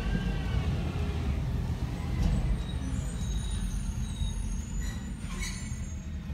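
Compressed-natural-gas automated side-loader garbage truck running at low speed as it pulls up to a curbside cart. A brief air-brake hiss comes about five and a half seconds in as it stops.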